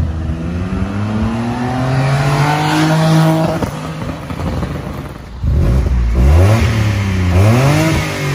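Citroen C1's engine, breathing through its standard air box, pulling hard as the car drives past, its pitch climbing for about three seconds and then falling away. After a break, the engine is revved twice, rising and falling in pitch each time.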